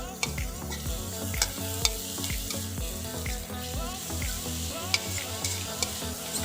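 Garlic sizzling in hot oil in a pan, stirred with a utensil that clicks and scrapes against the pan now and then.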